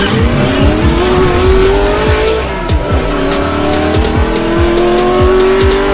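Car engine sound effect accelerating hard. Its pitch climbs, drops about two and a half seconds in as it shifts up a gear, then climbs again. It plays over electronic music with a heavy beat.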